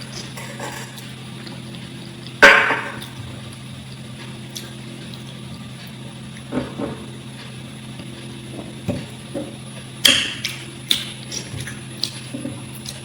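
Close-miked eating sounds: scattered clicks and knocks of food and hands or utensils, with one loud sharp knock about two and a half seconds in and a quick run of them near the end, over a steady low hum.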